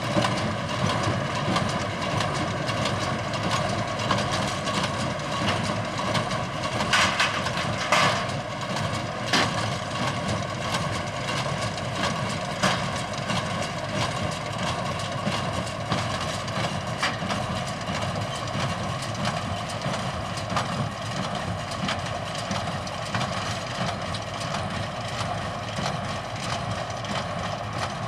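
Tractor and hay baler at work: the tractor engine runs steadily under load, with occasional sharp knocks from the baler's mechanism.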